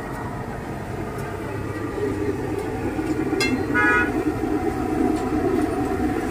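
Road traffic running steadily, with a brief vehicle horn toot just before four seconds in.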